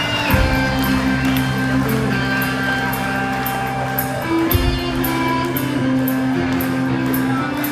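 Live rock band playing an instrumental passage: guitar over long held bass notes, with a steady cymbal beat keeping time.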